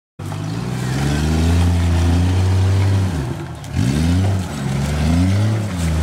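Lifted Jeep Cherokee XJ's engine under load while rock crawling over a creek bed. It holds steady revs for about three seconds, then the revs drop and climb back several times as the driver works the throttle over the rocks.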